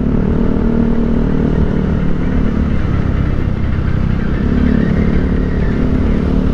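A motorcycle being ridden at a steady, moderate speed: a steady engine hum mixed with road and wind noise, heard from the rider's own bike.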